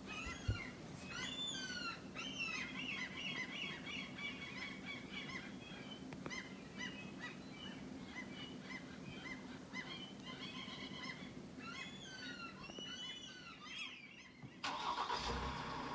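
A flock of birds calling over one another in a busy chorus of short rising-and-falling calls. A brief low thump comes just after the start. Near the end the calls stop and a steady engine-like noise takes over.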